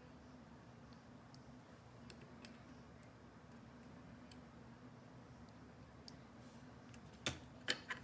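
Scattered light clicks of small metal lock parts being handled while a GEGE lock is reassembled, with a couple of louder clicks near the end. A faint steady hum runs underneath.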